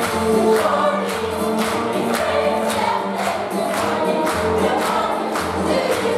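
A stage musical's cast singing together as a chorus over accompaniment with a steady beat.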